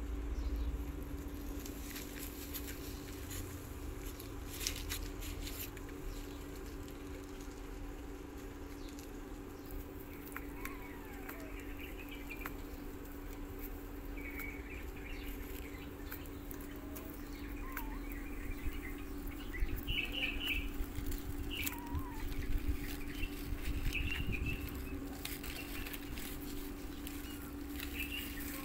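Tabby kittens suckling at their mother cat: soft, irregular clicking and rustling over a steady low hum. Faint short high chirps and a few brief falling squeaks come in the middle and latter part.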